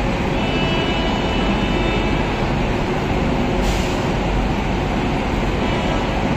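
WAP-7 electric locomotive standing with its pantograph raised, its blowers running with a steady loud rush and a faint high whine. A short hiss breaks in about three and a half seconds in.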